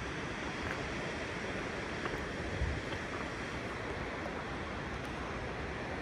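Steady rushing of a mountain river's water over rocks, with a brief low thump about two and a half seconds in.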